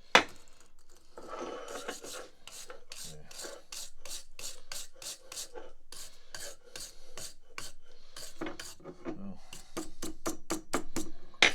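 Repeated scraping strokes on metal, a couple a second and quickening near the end, as old tarry grease and crud are worked off a leg vise screw. A sharp knock at the start is the loudest sound.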